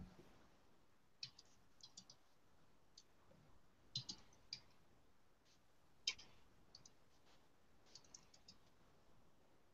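Near silence broken by faint, irregular clicks, a few every second or two, bunched around four seconds and eight seconds in.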